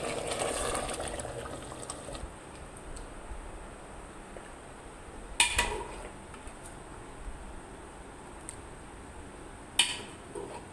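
A spoon stirring thick meat curry in an aluminium pressure cooker, a wet sloshing for the first two seconds. Then two sharp clinks of a metal ladle against dishware, about four seconds apart, as the curry is served into a bowl.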